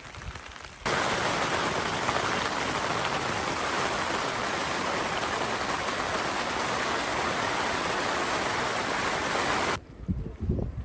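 Heavy, steady rain falling, starting abruptly about a second in and cutting off suddenly near the end.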